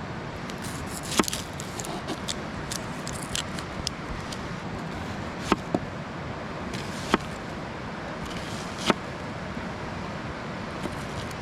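Small campfire of sticks burning, giving a handful of sharp pops and cracks a second or more apart over the steady rush of a nearby stream.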